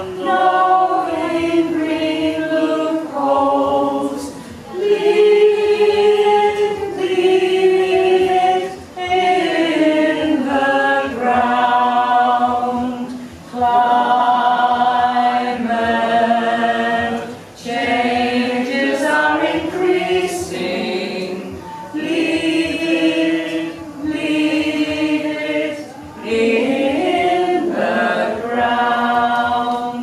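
A small group singing a cappella together, with sung phrases of held notes and short breaks between them.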